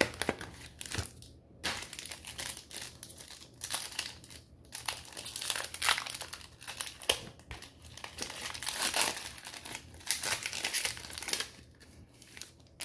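Foil wrapper of a Pokémon booster pack crinkling as it is handled and torn open. It comes in stretches with short pauses and quiets about a second before the end.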